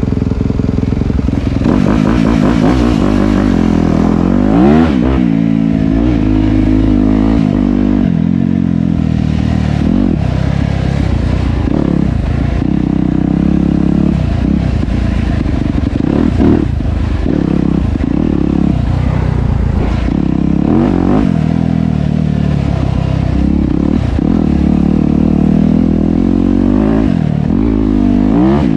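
Dirt bike engine running hard on a trail ride, its pitch rising and falling again and again as the throttle is opened and closed.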